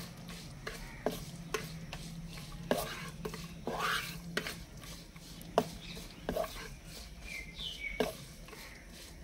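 Wooden spatula stirring and scraping cashews, almonds and sliced coconut roasting in ghee in a heavy iron kadhai. It makes irregular scrapes and sharp knocks against the iron, about one every half second to a second.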